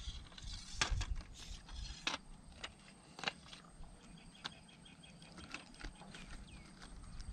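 Scattered clicks and light knocks from handling a fishing pole and stepping on a muddy bank, with a short run of rapid high ticks about halfway through.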